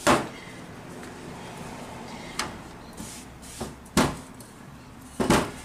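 Wooden rolling pin rolling out thin dough on a plastic cutting board, with about four short wooden knocks as the pin is set down and bumps the board.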